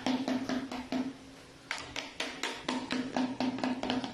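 Background music with a quick percussive beat of about four strokes a second, briefly pausing about a second in.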